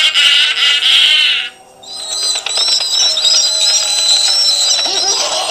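Spooky Halloween sound effects played from a tablet app. A dense, wavering effect cuts off about one and a half seconds in, and after a short dip a new eerie sound of wavering high tones takes over.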